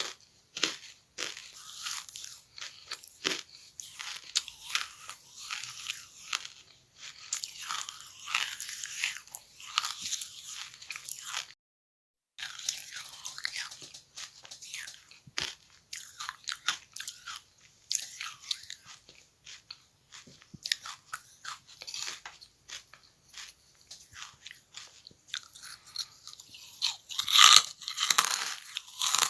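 Charcoal being bitten and chewed close to the microphone: a fast, irregular run of crisp crunches. It drops out to total silence for about a second near the middle, and the loudest crunches come near the end.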